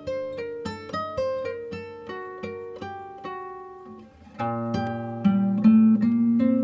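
Background music on guitar: single plucked notes, turning to fuller, louder strummed chords about four seconds in.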